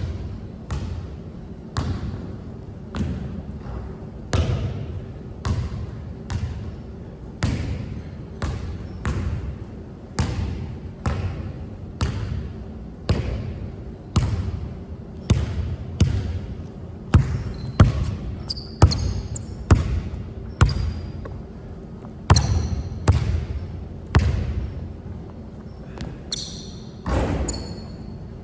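Basketball dribbled steadily on a hard court, a bounce about every two-thirds of a second with occasional quicker double bounces. Brief high squeaks come twice: past the middle and again near the end.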